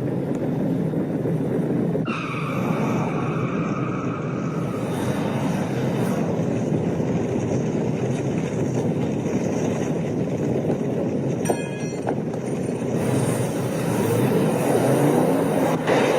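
Car engine running steadily with driving noise, with a brief high whine about two seconds in and a single click past the middle.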